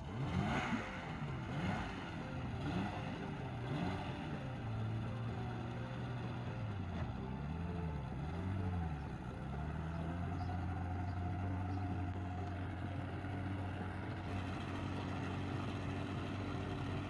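Small motorboat's engine running under way, its pitch rising and falling several times before settling into a steady drone about halfway through.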